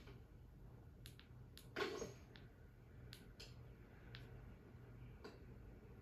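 Sparse, faint clicks and light knocks of the film's foley as the animated cowboy doll stirs and sits up on the bed, heard through a TV's speakers over a low room hum. The loudest knock comes about two seconds in.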